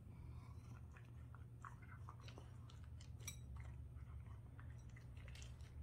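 Cat eating dry kibble from a bowl: faint, irregular crunching and chewing clicks over a low steady hum.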